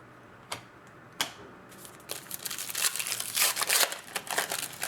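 Trading-card pack wrapper being crinkled and torn open. Two sharp clicks come in the first second or so, then a couple of seconds of dense crinkling.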